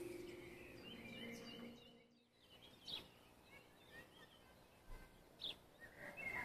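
The last held note of the music dies away over the first two seconds, then faint birdsong: a few short, scattered chirps.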